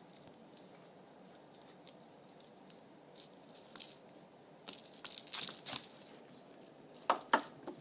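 Kitten playing with a feathered toy and cables on a wooden floor: scattered scratchy rustles and scrapes around the middle, then two sharp knocks near the end, the loudest sounds.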